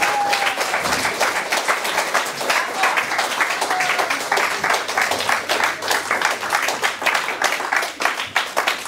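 Audience applauding: dense, steady clapping from a small crowd at the end of a piano duet.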